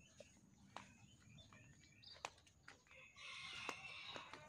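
A rooster crowing faintly about three seconds in, over a few soft steps of sandals on stony dirt.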